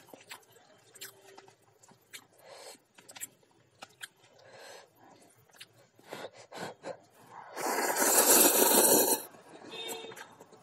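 A long, loud slurp of instant noodles from chopsticks, lasting about a second and a half, about three-quarters of the way through. Before it, small scattered clicks of chopsticks against the noodle cup and mouth sounds.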